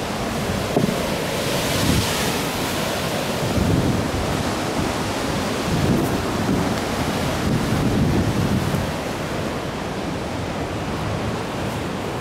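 Sea surf breaking and washing against a rocky shore, with a louder hissing wash about two seconds in, and wind buffeting the microphone.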